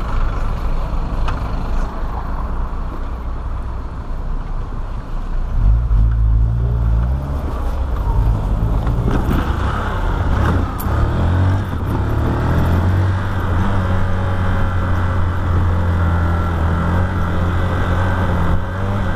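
Motorcycle engine running under the rider with a snapped clutch cable. About five seconds in it picks up, rises in pitch several times as the bike accelerates, then runs steadily while cruising.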